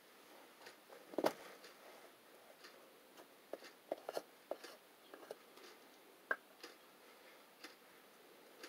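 Scattered light clicks and taps at an uneven pace, with a louder knock about a second in and a sharp click past the six-second mark.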